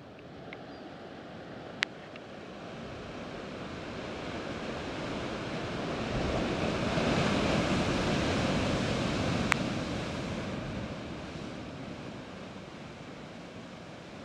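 Sea surf surging in and breaking against a rocky shore. It swells to a peak around the middle and washes back out, with two sharp clicks, one near the start and one late in the surge.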